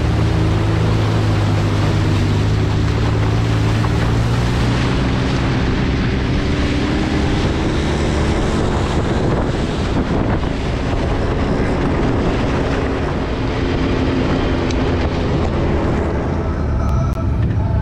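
Can-Am Maverick X3 side-by-side's turbocharged three-cylinder engine running under way, with wind buffeting the microphone. The engine note is clearest and steadiest in the first few seconds, then sinks into a rougher rush of wind and terrain noise.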